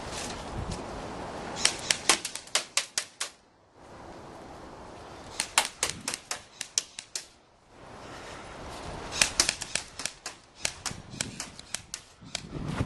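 Airsoft electric guns firing three quick strings of shots, about six to eight snapping shots a second, with wind noise on the microphone between volleys.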